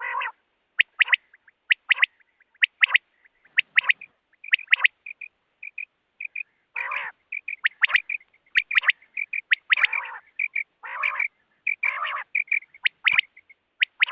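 Quail calling: quick sharp notes, often in pairs, repeated over and over, with a few longer, harsher calls mixed in.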